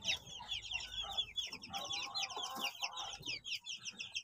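Shamo chicks peeping continuously, a fast run of short, high, falling peeps, with faint low clucking beneath.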